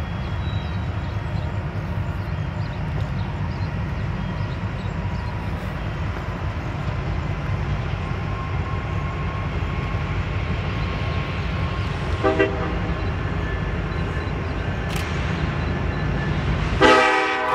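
Union Pacific 1995, an EMD SD70ACe diesel locomotive, rumbling low as it approaches slowly leading a freight train. Its horn gives a short toot about twelve seconds in, then a louder, longer blast near the end.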